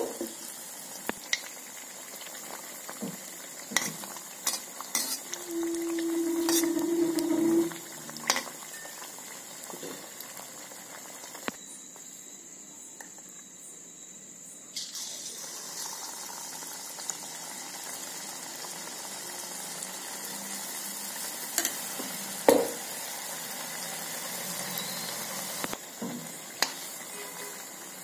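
Kandharappam batter deep-frying in hot oil in a steel kadai: a steady sizzle, with scattered clinks of a metal ladle or slotted spoon against the pan. A short low hum sounds about six seconds in, and the sizzle thins out for a few seconds around the middle.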